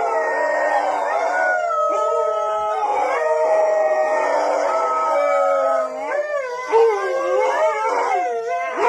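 Several dogs howling together, long held notes overlapping at different pitches. About six seconds in, the howls turn into shorter wavering cries that swoop up and down.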